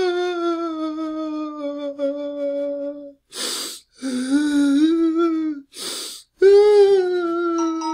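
Adult man crying: long, drawn-out wailing sobs that slowly sink in pitch, each broken off by a sharp gasping inhale. A wail fades out about three seconds in, a shorter wavering one follows, and a third, higher one starts near the end.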